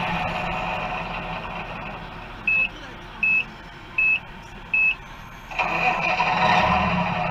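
Four short, evenly spaced reversing beeps, about one every 0.7 seconds, from a radio-controlled model truck's sound system, between stretches of a steady engine sound that fades over the first two seconds and comes back abruptly about five and a half seconds in.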